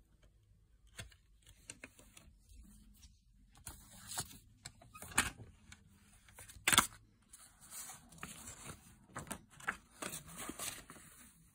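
Handling noise from a CD in its plastic jewel case and its paper booklet: scattered plastic clicks and paper rustling, with one sharp click a little past halfway.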